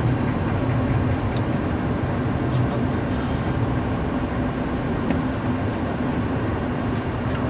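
Steady low rumble of a Boeing 737-800 rolling along the ground after landing, heard from inside the cockpit.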